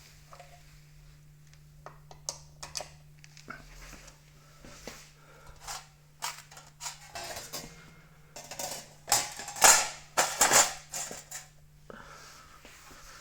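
Scattered plastic clicks and knocks from a Roomba charging base being handled, coming thicker and louder in a cluster a little past the middle, over a faint steady hum.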